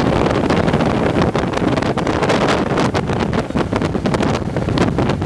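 Heavy wind buffeting the microphone on a ski boat running at speed, in irregular gusts, with the rumble of the boat's engine and hull underneath.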